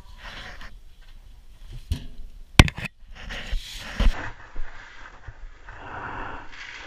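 Plastic scoop digging into granular chicken feed in a galvanized metal bin: gritty rustling and pouring of the feed, with a few sharp knocks, the loudest about two and a half seconds in.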